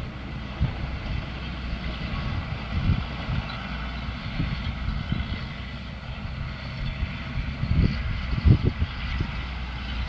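John Deere 4055 tractor's six-cylinder diesel engine running steadily at a distance as it pulls a round baler across the field, with irregular low thumps, the strongest about eight and a half seconds in.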